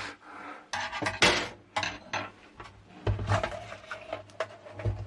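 Hard plastic layers of an LCD monitor's backlight assembly being forced apart by hand: a run of clicks, scrapes and clattering knocks, loudest about a second in.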